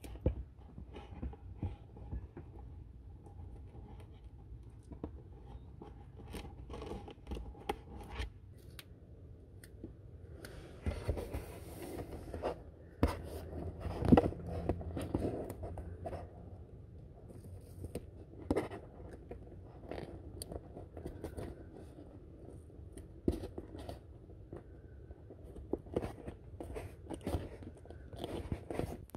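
Hands pressing a bundle of electrical wires against a panel edge and taping it down with duct tape: scattered scrapes, rubs and small clicks. A brief hissy rasp comes about eleven seconds in, and a louder knock around fourteen seconds.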